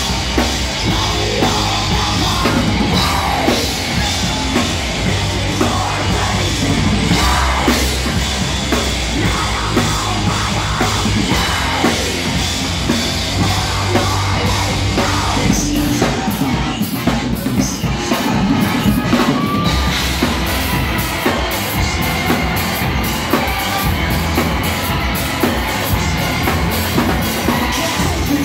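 Live heavy metal band playing loudly: distorted electric guitar and a pounding drum kit, with a singer's yelled vocals over it, heard in the hall.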